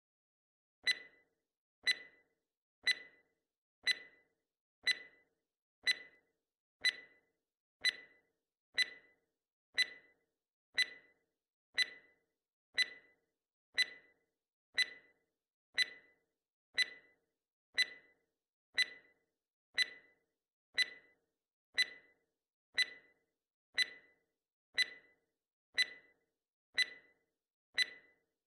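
Countdown timer sound effect: a sharp clock-like tick once a second, steady and even, starting about a second in.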